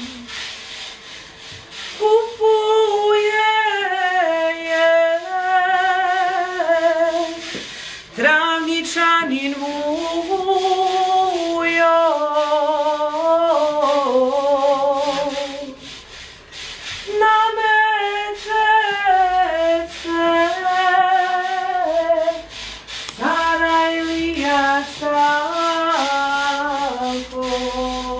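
A woman singing a slow folk song alone, without accompaniment, in long held phrases with a wide vibrato. The phrases break off briefly about 8, 16 and 23 seconds in.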